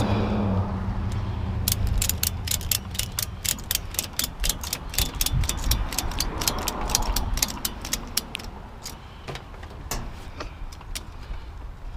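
Ratchet strap being cranked tight to cinch down a load: a fast, even run of clicks from the ratchet's pawl, about five a second, that slows to a few scattered clicks near the end.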